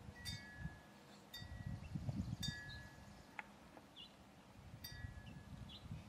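Wind chime ringing in the breeze, four clusters of clear tones a second or so apart, with gusty wind rumbling on the microphone.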